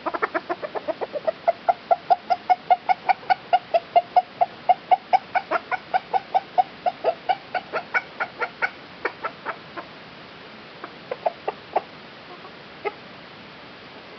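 A chicken clucking in a rapid, even run of short notes, about five a second, for most of nine seconds, then a few scattered clucks.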